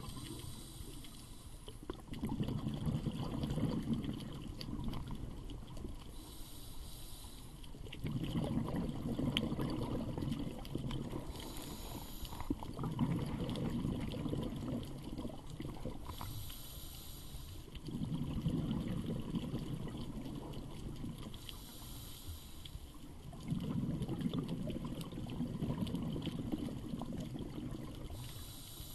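A scuba diver breathing underwater through a regulator: a short hiss on each inhale, then a longer bubbling rumble as the exhaled air escapes. The cycle repeats about every five seconds.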